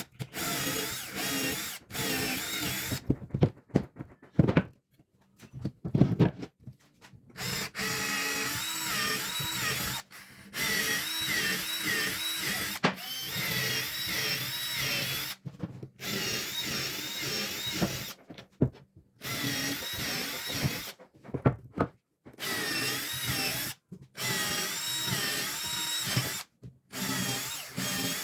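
Electric power drill boring into wood in repeated runs, its motor pitch wavering as it loads and eases, stopping and starting every few seconds. A few sharp knocks sound near the start.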